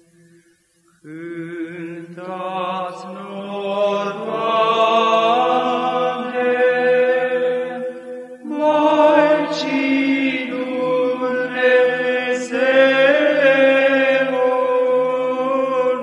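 Male monastic choir singing Byzantine psaltic chant in the fifth tone, in Romanian, with a steady held drone (ison) under the melody. The singing stops briefly near the start and again about halfway through, then resumes.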